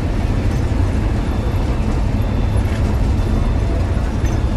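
Steady engine and road rumble heard from inside the cab of a bus cruising at high speed on a highway.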